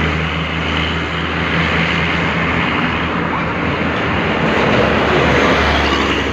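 A large vehicle's engine running close by, most likely a passing tour bus, with a steady low hum over loud road and traffic noise.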